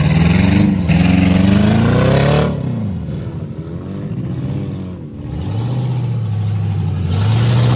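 Pickup truck engine revving hard as it drives through mud, rising in pitch over the first couple of seconds, easing off, then climbing again in a second burst of throttle about halfway through.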